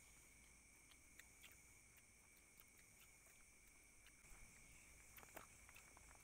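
Near silence: a faint, steady high chirring of night insects, with scattered faint small clicks and rustles from hands eating off a banana leaf.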